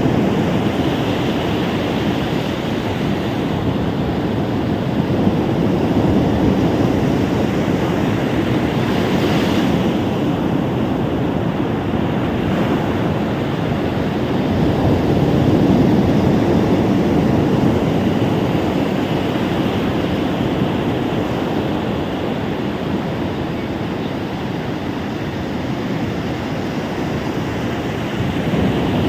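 Ocean surf washing onto a beach, a steady rush of waves that swells and eases slowly.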